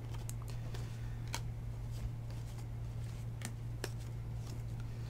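Freshly opened trading cards being slid one by one through a stack held in the hands, with a few soft clicks as cards slip past each other, over a steady low hum.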